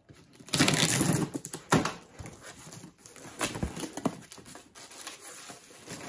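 A cardboard shipping box being cut and torn open: clear plastic wrap and tape ripped, cardboard flaps pulled back and plastic packing bags crinkling. It is loudest for about a second early on, followed by a few sharp knocks and softer rustling.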